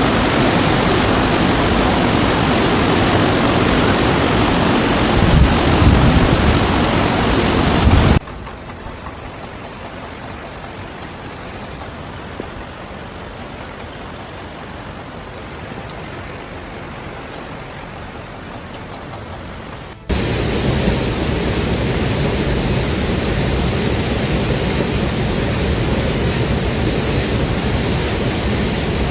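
Steady rushing noise of floodwater, loud for about eight seconds, then much quieter after an abrupt cut, then loud again from about twenty seconds in.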